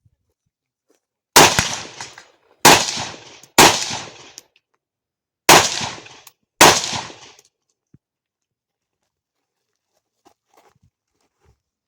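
Five rifle shots fired at uneven intervals, each sharp crack followed by a long echo dying away. The first three come quickly, then a pause and two more, followed by a few faint clicks.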